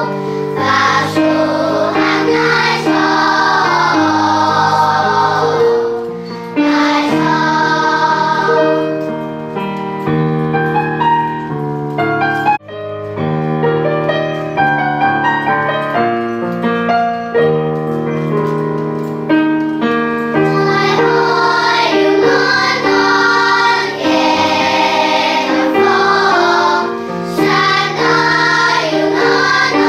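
Children's choir singing a song in Hakka, with long held notes and a brief break between phrases about twelve seconds in.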